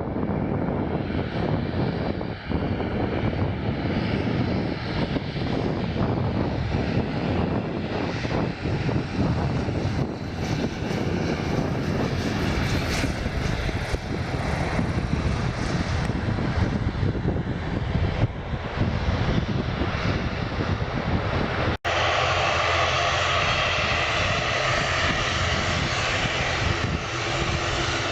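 Aircraft engines running, with wind buffeting the microphone. An abrupt break about three-quarters through gives way to a steadier, hissier engine sound.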